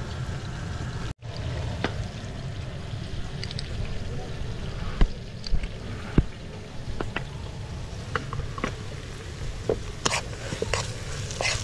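Sliced onions frying in oil in a steel pan over a wood fire, with a metal spoon clicking against the pan as tomato paste is spooned in, then crackly sizzling and scraping as it is stirred near the end. A steady low rumble lies underneath.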